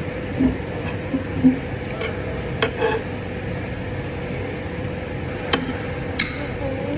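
Spoons clinking against plates and bowls at a meal: a few separate sharp clinks over a steady background hum.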